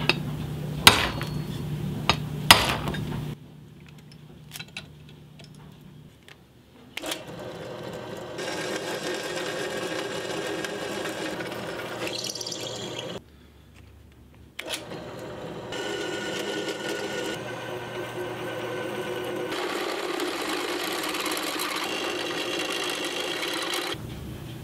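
A hammer strikes a center punch into a steel tube bracket about four times. Then a drill press runs, boring through the steel in two long stretches with a short stop between them.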